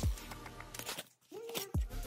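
Background music with a slow beat, cutting out for a moment about a second in. Under it, scissors scrape faintly as they slit the packing tape on a cardboard box.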